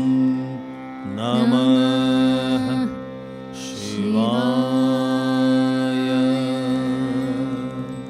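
Live Odissi music: a steady drone under a melody line that glides between notes in two phrases, one about a second in and a longer one from about four seconds, with a short high shimmer between them.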